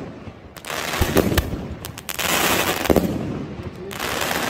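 Fireworks going off in quick succession: clusters of sharp bangs about a second in, again around three seconds in and near the end, with dense crackling between them.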